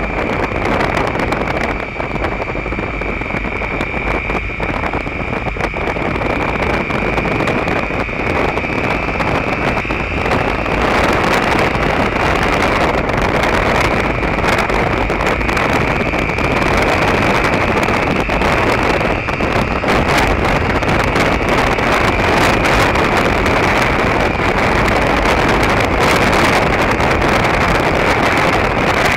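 Wind rushing over the camera microphone on a moving Derbi Terra Adventure motorcycle, with its engine running steadily beneath. It gets louder about ten seconds in and stays there.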